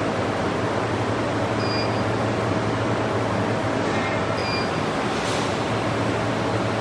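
SuperbMelt SPB-2TB5 induction gold melting furnace running: a steady machine noise with a low hum and a thin, very high whine that steps up in pitch about four seconds in. Two short faint high chirps come about three seconds apart.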